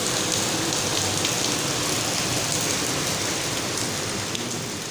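Rain falling steadily on a wet concrete courtyard and leafy trees, a dense hiss with single drop splashes ticking through it. The sound slowly fades out near the end.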